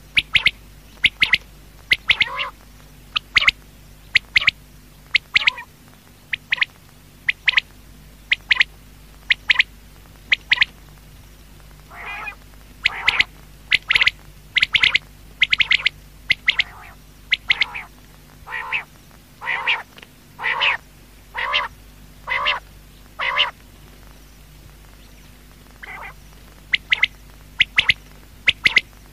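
Quail calling: short, sharp calls repeated about once a second, some lower and longer, with a pause of a couple of seconds near the end, over a faint steady hum.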